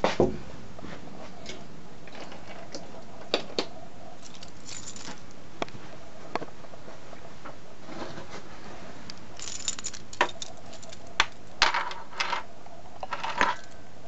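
Handling noise of a hand-carried camera: scattered light clicks and knocks with brief metallic jingles, thickest in the second half.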